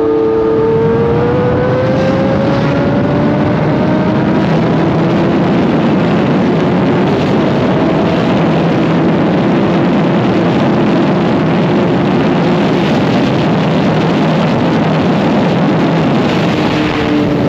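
Kawasaki inline-four sportbike engine running at speed, its pitch climbing gently over the first few seconds and then holding steady, under a loud, constant rush of wind.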